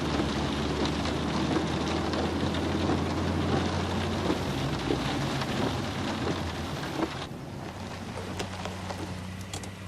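Heavy rain falling over a steady low rumble, as film sound design; the hiss of the rain thins out sharply about seven seconds in, leaving the low rumble and lighter drops.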